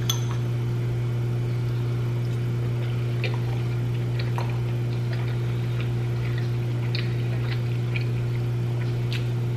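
A fork clinking and scraping lightly in a ceramic bowl of pasta a few times, over a steady low hum.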